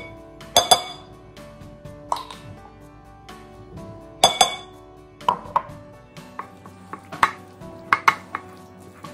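Sharp clinks of a utensil against a glass mixing bowl as mustard is spooned in, two of them loud, then a cluster of smaller knocks as a wooden spoon stirs the mixture in the bowl near the end. Soft background music runs underneath.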